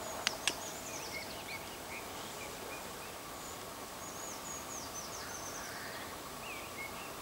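Small songbirds calling, a scatter of short high chirps and sweeping notes, over a steady outdoor hiss. Two sharp clicks come just after the start.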